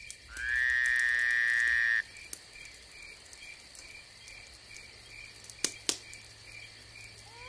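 Intro sound effects: a loud rising electronic tone that levels off and cuts off suddenly after about a second and a half, then faint, evenly repeating cricket-like chirping, about two or three a second, with two sharp clicks near the end.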